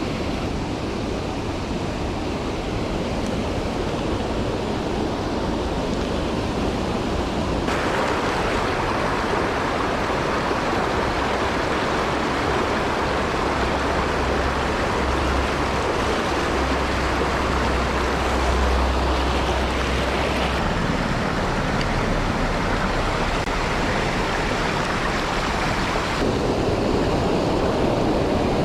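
Mountain stream water rushing steadily, a dense hiss with no pauses. Its tone shifts suddenly three times.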